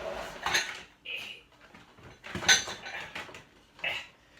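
Kitchenware clinking and clattering: a few separate metallic knocks, as utensils, a bowl or pans are handled.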